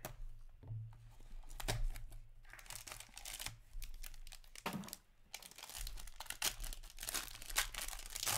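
Hands tearing open a trading-card box and its foil pack wrapper, crinkling and ripping in irregular bursts, with a brief pause about halfway through.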